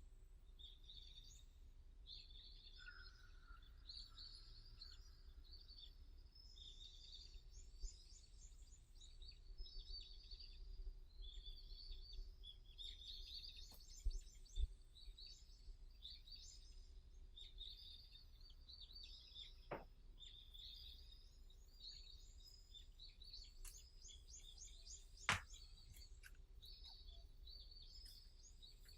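Several wild songbirds chirping and trilling, faint and overlapping. A few sharp clicks stand out in the second half.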